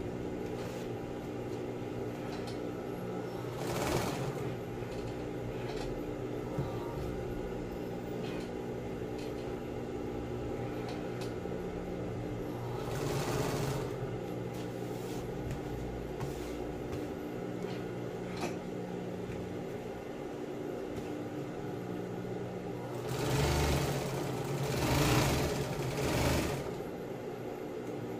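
Industrial sewing machine stitching through vinyl sheet: a steady motor hum, with louder runs of stitching about four seconds in, around the middle, and three close together near the end.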